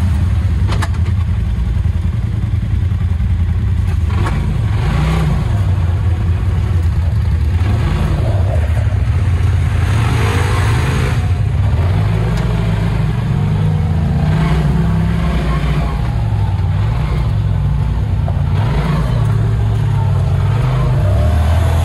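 Polaris RZR Pro XP Turbo side-by-side's turbocharged twin-cylinder engine under load, revving up and easing off again and again with the throttle. Bursts of rushing noise come now and then through the engine sound.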